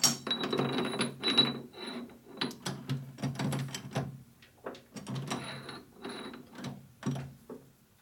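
Metal-on-metal handling at a lathe chuck as a steel workpiece is turned around and refitted in the jaws. A run of clicks, knocks and short scrapes thins out near the end, over a faint steady hum.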